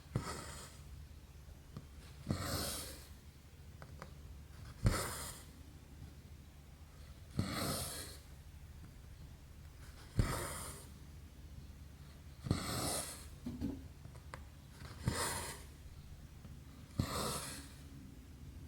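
Embroidery thread being drawn through 11-count cross-stitch fabric, stitch after stitch. Each stroke is a sharp tick as the needle pierces the cloth, then a short swish of thread pulled through. It repeats about every two and a half seconds, eight times, over a steady low hum.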